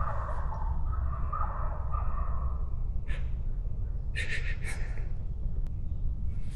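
Wild turkey gobbling, the gobble trailing off about two seconds in, then a few short, harsh calls a little later.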